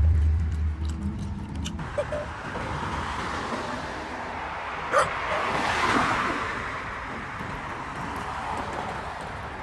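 Low music notes for the first two seconds, then outdoor road noise that swells as a car passes about six seconds in and fades away.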